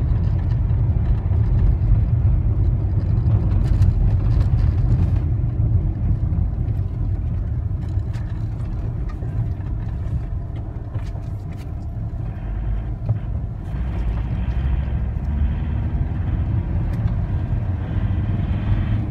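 Inside a moving car on a packed-snow road: a steady low rumble of engine and winter tyres, with a few scattered clicks, growing louder again about two-thirds of the way through.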